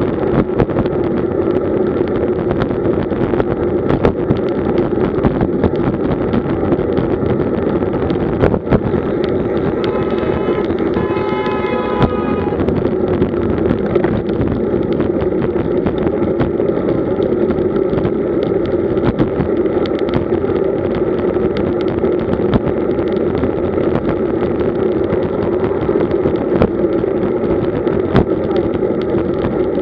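Steady wind rush over a bike-mounted camera's microphone, mixed with road-bike tyre and road noise and scattered small knocks from bumps. A brief pitched tone sounds for about two seconds, starting around ten seconds in.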